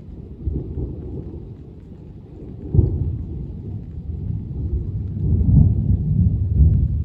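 Thunder rumbling, with a sharp crack about three seconds in, then a longer, louder rumble in the last couple of seconds.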